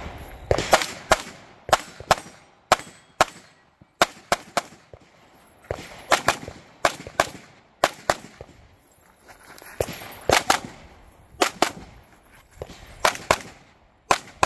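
A competition pistol firing rapidly during a practical shooting stage, about twenty shots, mostly in quick pairs. Short pauses fall between the strings.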